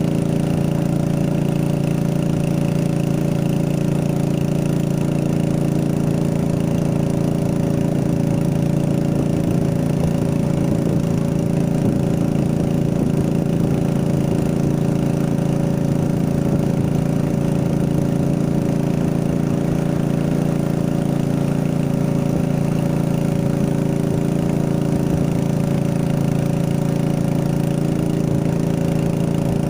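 A small engine running steadily at an even speed, with no change in pitch or level.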